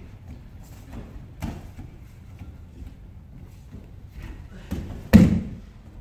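Bare feet shuffling and stepping on tatami mats, then one loud thud of a body hitting the mat in a breakfall about five seconds in, as the attacker is thrown down.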